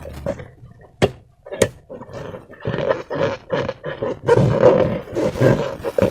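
Slime being squeezed and worked by hand, an irregular wet squelching and crackling, with two sharp clicks about a second in.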